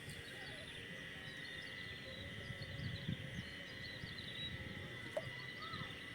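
Outdoor ambience: a steady high insect drone with many small bird chirps over it, and a low uneven rumble underneath.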